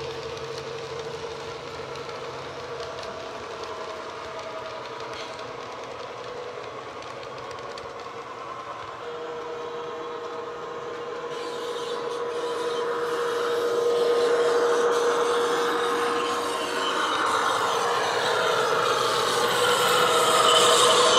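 Bachmann Class 70 model locomotive's DCC sound decoder playing a Class 70 diesel engine sound file through its small EM1 speaker, a steady engine note under the running of the model container train. It grows louder from about halfway through as the locomotive comes closer.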